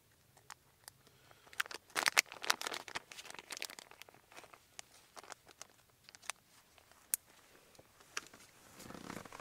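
Plastic soft-bait bag crinkling as it is opened and a grub is pulled out: a dense run of crackles about two seconds in, then scattered single clicks.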